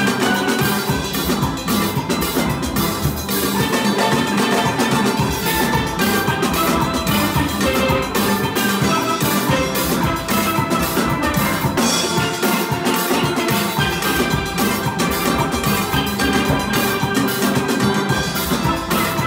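A steel band playing a calypso together on steel pans of several sizes, a continuous stream of quick struck, ringing notes.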